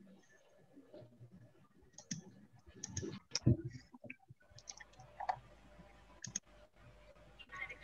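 Computer mouse button clicking: a handful of faint, scattered clicks.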